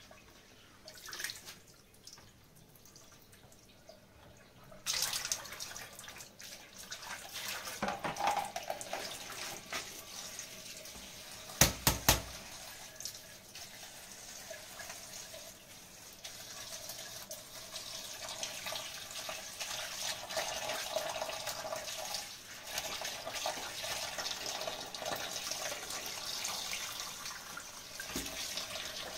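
Water running steadily, as from a tap into a sink or bowl, starting about five seconds in. Two sharp knocks come close together near the middle.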